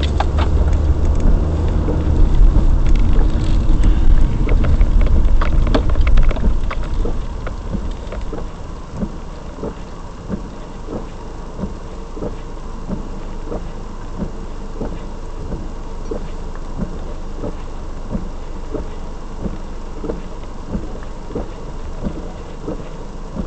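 Car cabin noise picked up by a dash camera: a loud, steady road and engine rumble while the car is moving, dropping off about six seconds in to a quieter hum with light irregular ticking as the car stops in traffic.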